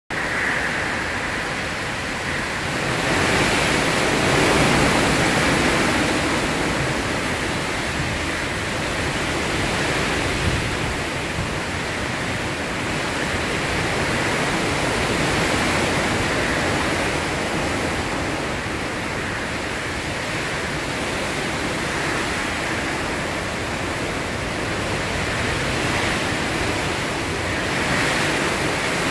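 Hurricane wind and heavy rain: a steady rushing noise that swells and eases in gusts, strongest a few seconds in.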